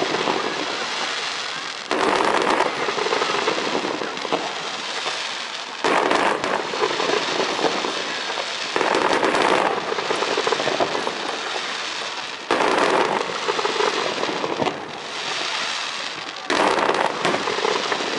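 Aerial fireworks bursting one after another, about every three to four seconds. Each burst starts with a sudden bang and trails off into a few seconds of dense crackling.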